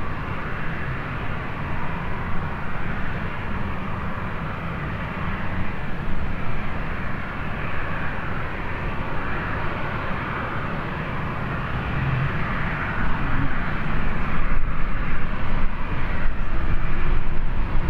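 Jet airliner engines running at a distance, a steady rushing noise, with wind buffeting the microphone; the buffeting grows louder about three-quarters of the way through.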